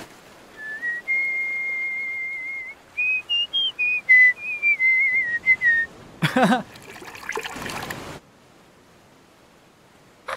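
A person whistling a short, lazy tune: one held note, then a few notes rising and stepping back down. About six seconds in comes a brief vocal sound with a second or two of noise.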